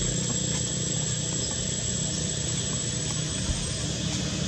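Steady background noise: a low hum and hiss with a thin, high, steady whine that stops near the end. No monkey calls are heard.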